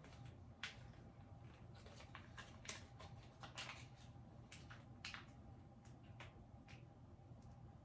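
Faint, irregular crinkles and rustles of a foil MRE pouch being handled and squeezed out.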